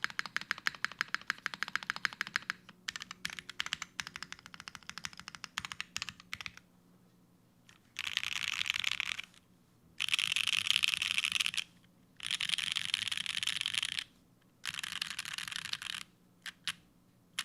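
Mechanical keyboard with lubed JWK Alpaca linear switches on an aluminium plate and GMK keycaps, typed on quickly for about six seconds. After a short pause come four stretches of dense, rapid clatter, each a second or two long, and a few single key presses near the end.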